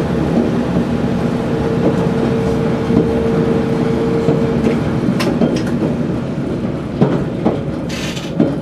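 QR 2000 class diesel railmotor running along the line, heard from inside the cab: a steady rumble of engine and wheels on rail, with a steady hum that stops about halfway through. A few sharp clicks and knocks follow near the end.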